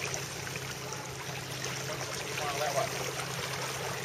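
Water rushing and hissing steadily along the hull of a Melges 24 sailboat under sail.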